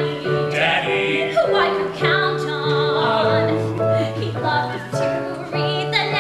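A woman singing a musical-theatre show tune live, holding long wavering notes over a steady instrumental accompaniment.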